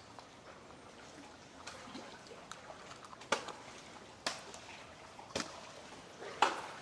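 Faint trickling and dripping water, with about six short, sharp taps spread through it.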